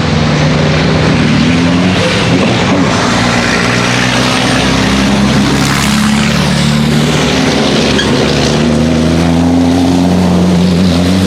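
Race trucks' diesel engines running loud and hard, several at once, their pitch rising and falling as they rev on the circuit.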